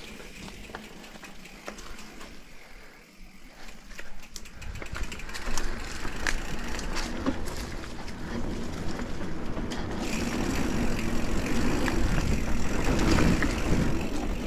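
Mountain bike riding down a dirt trail: tyre noise and the rattle and clicks of the bike over rough ground, with wind on the helmet camera's microphone, growing louder after about five seconds as the pace picks up.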